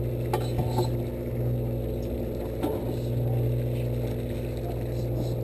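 A fishing boat's engine running with a steady low drone, with a few light knocks about half a second and two and a half seconds in.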